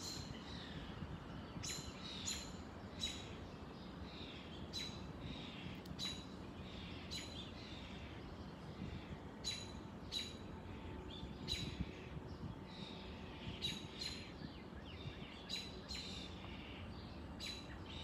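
Birds chirping in the trees: short, sharp chirps come about once a second, sometimes two close together, over a steady low background noise.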